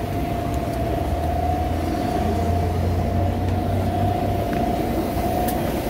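City bus idling at the stop with its door open: a steady low engine rumble with a constant hum above it, the rumble swelling for a couple of seconds midway.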